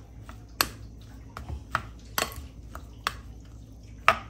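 A white plastic spoon stirring and pressing cold cooked rice in a glass mixing bowl: soft squishing of the grains, broken by several sharp clinks of the spoon against the glass.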